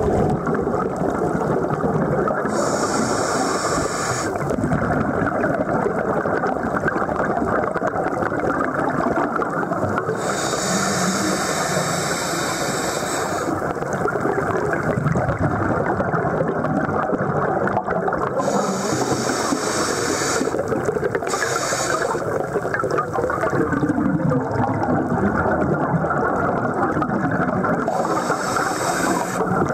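Underwater sound of a scuba dive heard through a camera housing: a steady muffled rumble of water and bubbles, with a hiss about every eight seconds, lasting a second or more, from the diver's breathing through a regulator.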